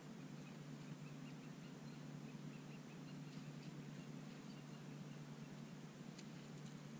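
Quiet forest ambience: a steady low hum with faint bird chirps a few seconds in, and a couple of faint clicks near the end.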